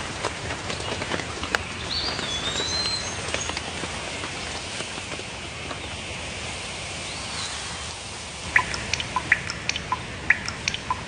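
Songbirds calling over a steady rain-like hiss. A whistled note rises and falls about two seconds in, and a quick run of sharp chirps comes near the end.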